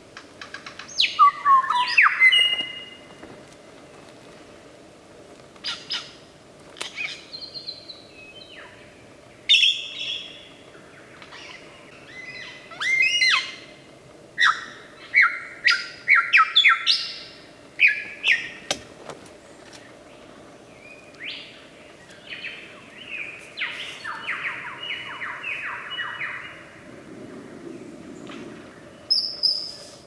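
A lyrebird singing close by: a varied medley of loud whistles, gliding and sweeping calls and sharp chirps, typical of lyrebird mimicry, with a quick string of repeated notes in the second half.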